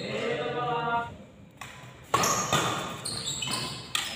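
A voice calls out, then, from about two seconds in, several sharp badminton racket hits on a shuttlecock ring out with a short echo, mixed with brief squeaks of shoes on the court floor.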